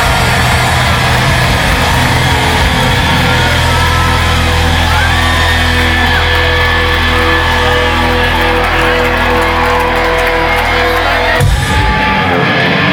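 Live rock band holding a loud sustained chord with crowd shouts and whoops over it; the chord breaks off suddenly near the end.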